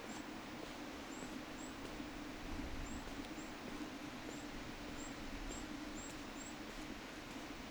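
Steady rush of falling water from a waterfall, with a small bird giving about ten short, high, thin chirps at irregular intervals.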